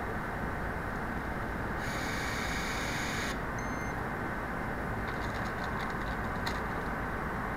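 Stanley electric nutrunner on an articulated torque arm running for about a second and a half as it drives down a fastener on an electric power steering gear, over a steady factory hum, followed by a short electronic beep. Near the end, a string of light metallic clicks as the arm is moved.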